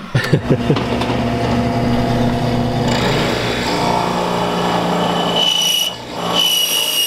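Drill press motor running steadily, its tone shifting a couple of times, with a high whine joining in near the end.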